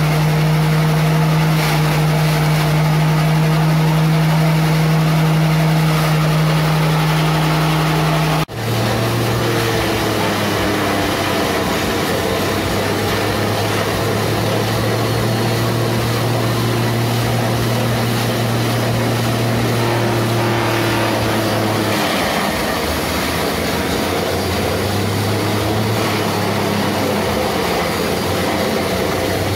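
Oil palm frond chopper machine running steadily, its motor humming while it shreds fronds fed into it. About eight seconds in the sound breaks off abruptly and resumes with a lower hum.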